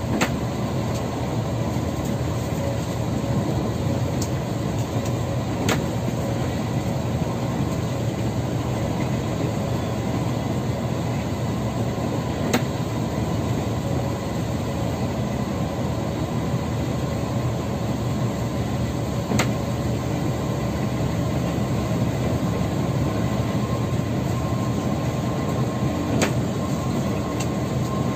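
Steady drone of a coach's engine and tyres at highway cruising speed, heard from inside the cabin, with a faint whine running through it. A few short sharp clicks come several seconds apart.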